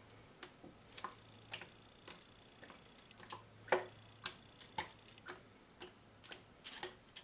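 Faint, irregular ticks of olive oil drizzling from a large bottle onto broccoli and aluminium foil, about two a second, with one louder tick near the middle.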